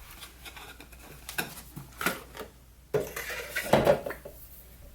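Candles and their boxes being handled and set down on a desk: a few sharp knocks and clinks, with a small cluster of them about four seconds in.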